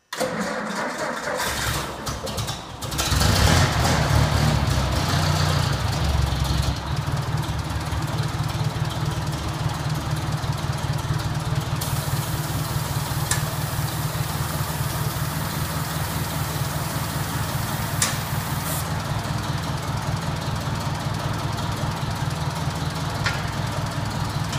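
Old tractor engine cranked by its starter, catching about three seconds in and running fast, then settling to a steady low idle. Partway through, a hiss of compressed air from a blow-off nozzle pushed into the hydraulic reservoir to prime the pump runs for several seconds over the idle, with a few sharp clicks.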